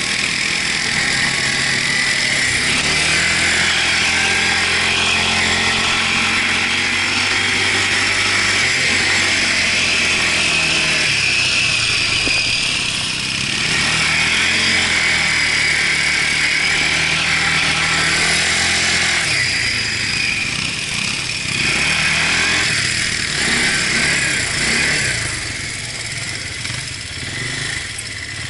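Quad bike (ATV) engine running under way, its note dipping and rising again a couple of times and weakening in the later part, over a steady hiss.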